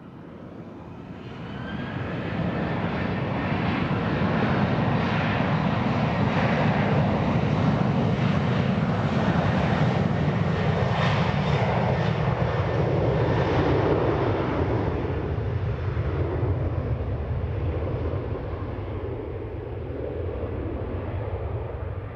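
Boeing 737-800's CFM56-7B26E turbofan engines spooling up to takeoff thrust, with a rising whine over the first couple of seconds, then a loud steady jet roar as the airliner accelerates down the runway, slowly fading as it draws away.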